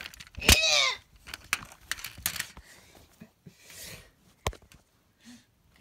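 A few sharp clicks and knocks, with a short falling voice-like cry about half a second in.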